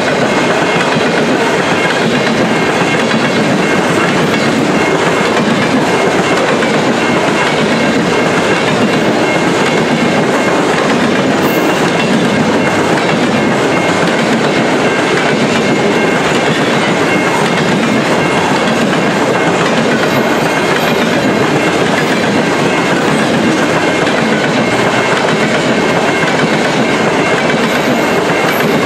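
Steel wheels of covered hopper grain cars rolling past on the rails: a loud, steady rumble and clatter that holds without a break.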